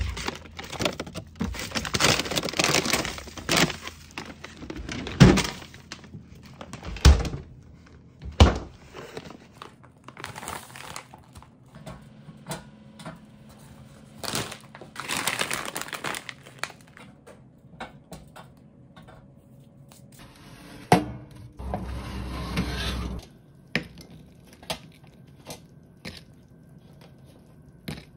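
Irregular rustling and crinkling with a series of sharp thumps and knocks. Near the end comes a denser rustle of about a second and a half.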